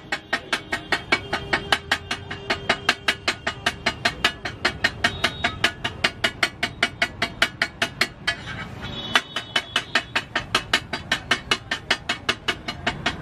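Metal spatula chopping an egg omelette on a flat metal griddle: rapid, even clanging strikes, about four or five a second, with a short pause about eight seconds in.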